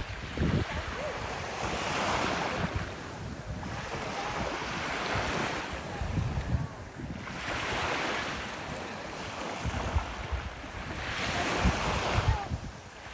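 Ocean waves breaking and washing up the beach, the surf swelling and fading every few seconds. Wind buffets the microphone with low rumbles.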